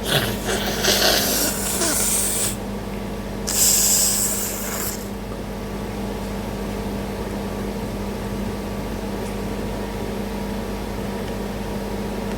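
A woman blowing her nose hard twice: a long, forceful blow lasting about two and a half seconds, then a shorter one a second later. After that only a steady background hum remains.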